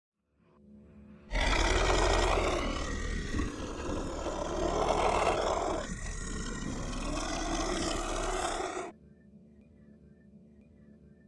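A loud rushing roar that starts suddenly about a second in and cuts off suddenly near nine seconds, with a deep rumble underneath and a slow whooshing sweep through it.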